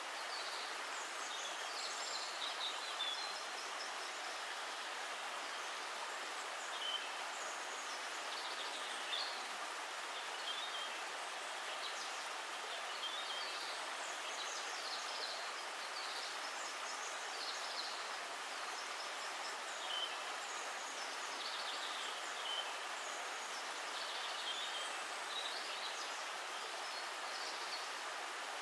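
Steady rush of flowing water, with small birds chirping and singing on and off throughout.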